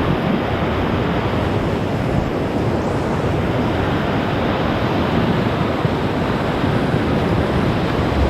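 Whitewater of the Ocoee River rapids rushing steadily and loudly around the raft, with some wind on the microphone.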